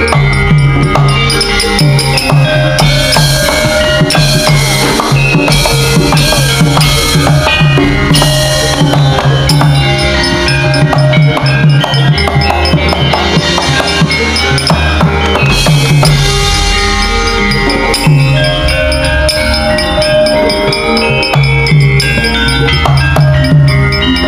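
Javanese gamelan playing, with drumming keeping a steady beat under ringing metallophone melody lines.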